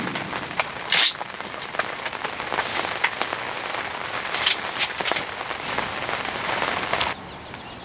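Heavy rain pattering close to the microphone, with loud drops cracking sharply against a nearby surface. The noise drops off suddenly about seven seconds in.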